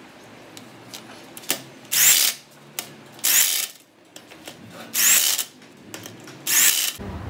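A power tool run in four short bursts of about half a second each, each with a faint rising whine, with clicks of metal tools being handled in between. Near the end a low steady running sound starts.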